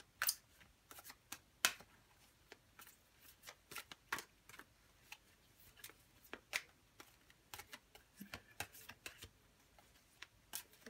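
Tarot cards being shuffled by hand: a scatter of short, irregular card snaps and slaps, the sharpest two near the start.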